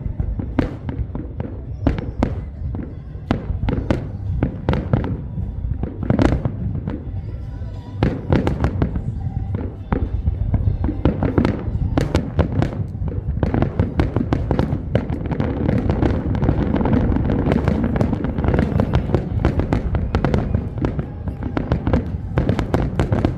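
New Year's fireworks going off in a rapid barrage of overlapping bangs over a constant low rumble of many explosions. The barrage grows denser about ten seconds in.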